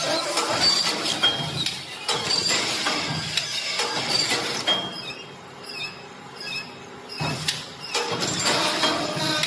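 Bamboo weaving machine running, with quick irregular clacking and some squeaks as its parts move the bamboo strips. It goes quieter for about two seconds midway, then picks up again.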